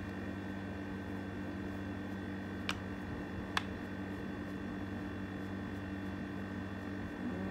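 Steady mechanical hum of a running machine in a small room, with two light clicks just under a second apart about a third of the way in.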